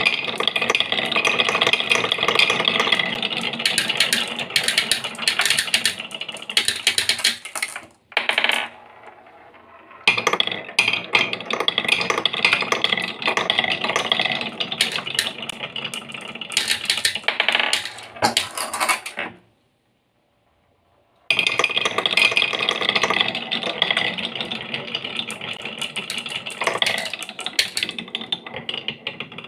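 Many marbles rolling and clattering down a wooden HABA marble run, a dense stream of clicks and rattles. It stops briefly about a quarter of the way through and again past the middle, then starts up again each time.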